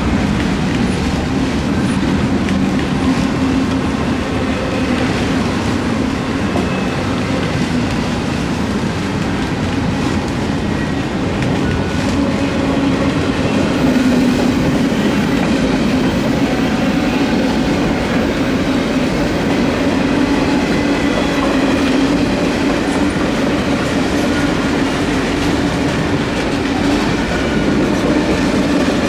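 Norfolk Southern intermodal freight train's cars rolling past over the rails, a steady, continuous rumble.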